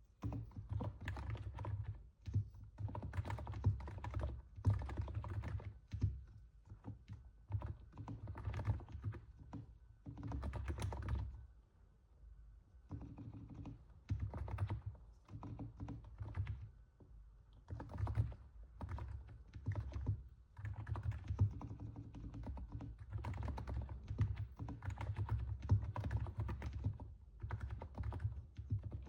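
Continuous typing on a NiZ 68 Pro capacitive keyboard, with the soft, muted keystrokes likened to stepping on snow. The keystrokes come in fast runs with brief pauses, around 2, 12 and 20 seconds in.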